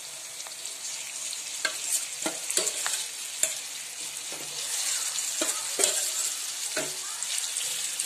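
Marinated chicken pieces sizzling in hot oil with sautéed onions and curry leaves in a frying pan, with scattered short clicks and scrapes; the sizzling grows louder about halfway through.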